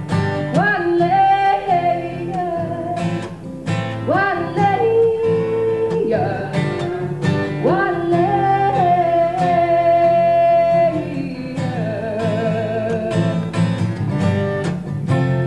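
A woman singing long, wordless-sounding notes over a strummed acoustic guitar in a live folk song; several notes scoop up into pitch, and one near the end wavers with vibrato.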